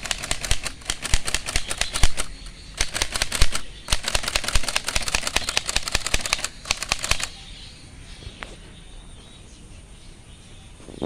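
Antique Remington typewriter being typed on: quick runs of key strikes clacking several times a second, with a short pause about two and a half seconds in. The typing stops about seven seconds in, leaving one lone clack a little later.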